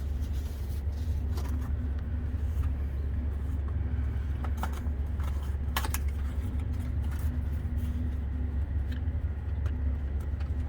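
A steady low mechanical hum, like an engine running, with a few sharp clicks and knocks of metal parts and tools being handled at the machine.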